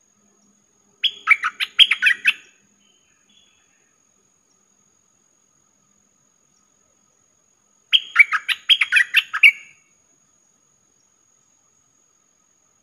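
A caged decoy bulbul sings two short, rapid phrases of several quick notes each, one about a second in and one about eight seconds in, with silence between.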